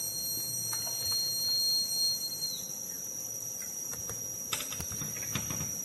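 9 V DC buzzer of a homemade rain alarm sounding a steady, high-pitched tone: water in the cup has bridged the two wires and completed the circuit, the alarm's signal that rain has fallen. One of its tones drops out about halfway through, and a few faint knocks come near the end.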